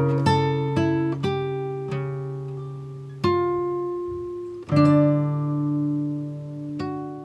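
Background music: acoustic guitar plucking single notes that ring out, then a fuller chord about five seconds in that slowly fades.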